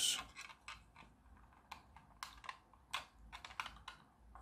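Light, irregular clicks and taps of 3D-printed plastic parts knocking together as they are handled and fitted on a tabletop.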